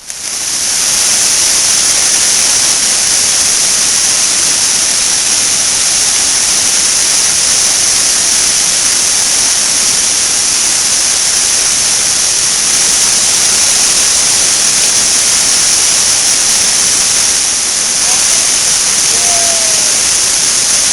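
Large river waterfall rushing: a loud, steady wall of falling water that cuts in abruptly at the start and holds unchanged.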